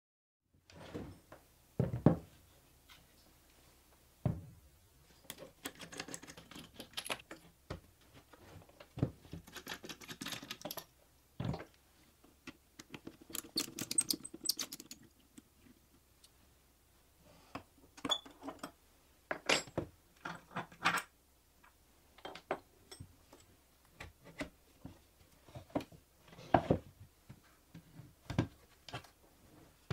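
Workbench handling sounds: an electric hand planer and plywood jig parts set down, shifted and knocked on a wooden bench, with a hand screwdriver turning screws into the jig in the middle. Separate clicks and knocks, the loudest about two seconds in.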